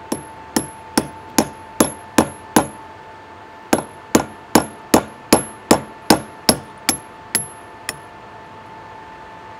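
Hammer tapping a steel anchor bolt into a brick wall to set it: two runs of quick metal-on-metal strikes, about two and a half a second, seven strikes, a short pause, then eleven more, each with a short high ring.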